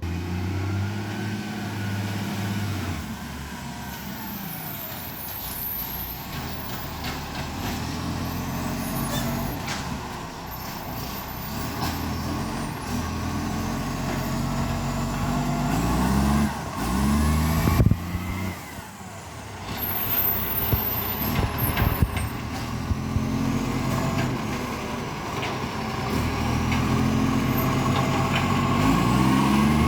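Iveco ACCO garbage truck's diesel engine pulling away and working up through the gears, its pitch climbing and then dropping at each change, with short hisses of air from the brakes. The engine has an exhaust leak.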